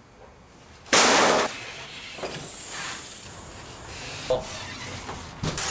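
A sudden loud burst of hissing noise about a second in, dropping after half a second to a lower, steady hiss that carries on for several seconds.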